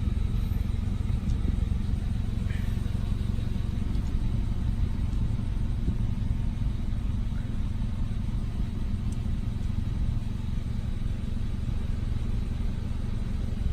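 Hyundai Veloster Turbo's 1.6-litre turbocharged four-cylinder engine idling steadily with a low, even rumble, run after an oil change to circulate the fresh oil before the level is checked.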